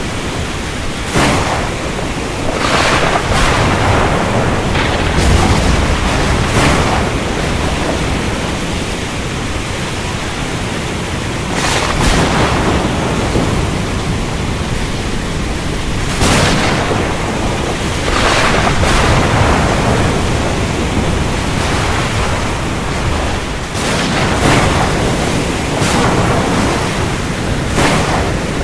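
Thunderstorm: a steady hiss of heavy rain with about ten sharp cracks of thunder spread through it, some coming in quick pairs.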